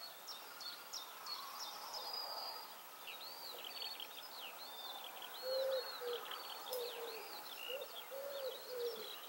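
Songbirds twittering in high-pitched phrases, faint and continuous. From about halfway through, a dove coos a series of short low notes.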